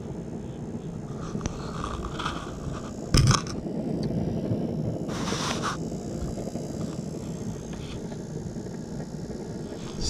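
Sheet-metal burner dust cover of a Norcold RV fridge being fitted by hand: a sharp metal clack about three seconds in, and a scrape around five seconds, over steady background noise.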